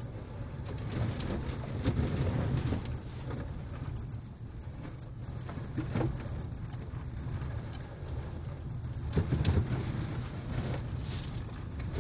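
Inside a car driving through slush and puddles on a rutted, thawing dirt road. There is a steady low road rumble, water and slush splash against the car, and sharp knocks underneath that sound like rocks hitting the underbody. The knocks are loudest about two seconds in and again around nine to ten seconds.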